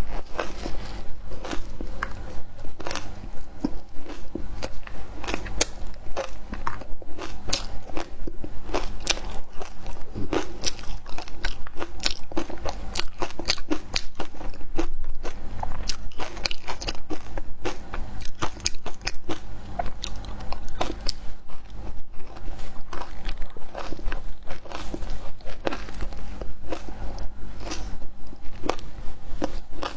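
Close-up crunching of frozen matcha ice being bitten and chewed: a dense, irregular run of sharp cracks and crackles, several a second.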